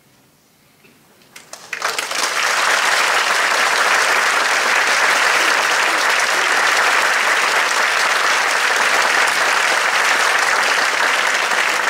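Concert audience applauding: after a short hush, scattered claps start about a second and a half in and swell within a second into steady, dense applause.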